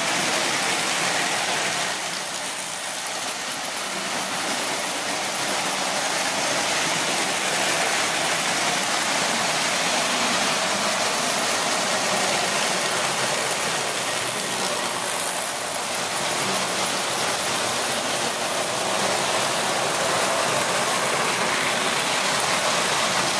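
Marx tinplate toy trains running on three-rail track: a steady whir and rattle of wheels on the rails and electric motors, dipping briefly twice.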